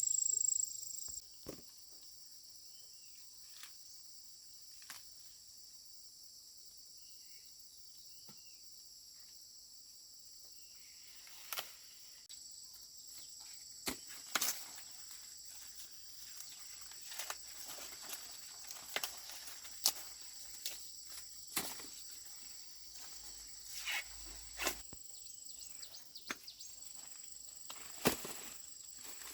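Insects chirring steadily in a high band, with one loud, shrill insect call that stops about a second in. From about halfway, scattered sharp snaps, cracks and rustles, the sound of someone working among dry corn plants.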